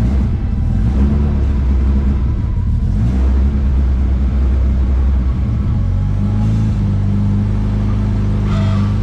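Honda Civic engine running through a newly fitted K-Tuned big-tube exhaust header, a steady low drone that steps up to a higher pitch about six seconds in and holds there.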